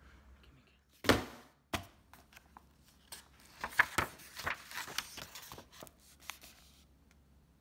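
Pages of a hardcover book being turned and pressed flat by hand: a run of paper rustles and light slaps. There is a heavier thump about a second in.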